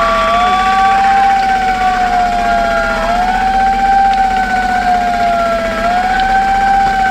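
A siren wailing in a slow repeating cycle, its pitch sinking for nearly three seconds and then jumping back up, over a steady low engine drone.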